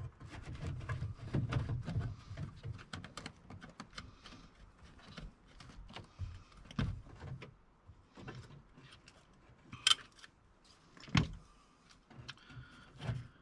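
Robertson screwdriver backing out the small screws that hold an old speaker in a van's door panel: irregular small clicks and scrapes. A sharp click about ten seconds in and another about a second later as the speaker is worked loose and pulled from the panel.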